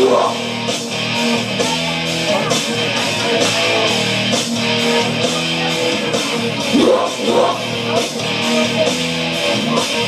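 Instrumental break in a loud rock song: guitar chords held over a steady drum beat, with no singing.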